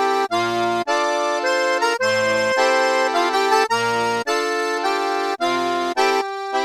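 Background music: held chords that change every half second to a second, with a low bass note joining in at regular intervals.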